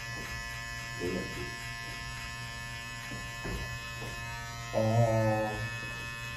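Hair clippers running with a steady buzz as they cut along the side of a head, in a small tiled room. A voice sounds briefly about a second in, and again more loudly about five seconds in.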